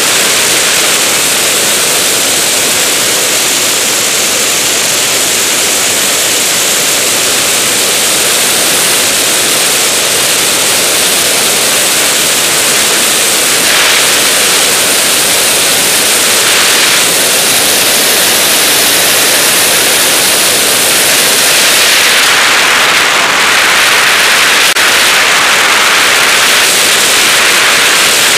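Steady rushing wind noise: airflow over a camera mounted on a DG-100 sailplane in gliding flight, with no engine. The hiss brightens briefly twice a little past the middle and again over the last several seconds.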